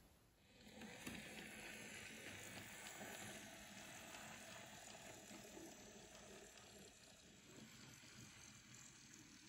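Faint running of an N gauge model train, its small electric motor and wheels on the rails, rising about a second in and slowly dying away as it passes.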